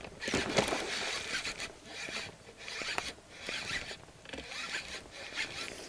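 Baitcasting reel being cranked to retrieve a lure, a rasping whir that swells and fades in repeated pulses.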